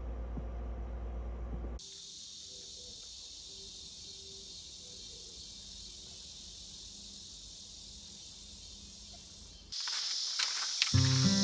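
Steady high-pitched insect chorus of a summer night, running evenly for most of the stretch after a low hum in the first couple of seconds. Background music with a beat comes in near the end.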